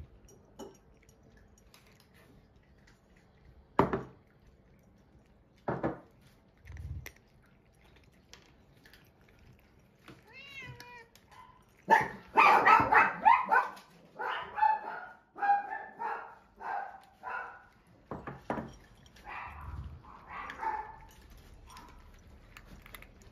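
Several house cats meowing around their food bowls: a single rising meow about ten seconds in, then a loud run of overlapping meows lasting several seconds. A few sharp knocks come earlier, in the first half.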